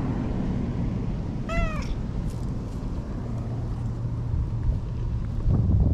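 Orange-and-white cat giving one short meow, rising then falling, about a second and a half in, over a steady low rumble. A low thump near the end.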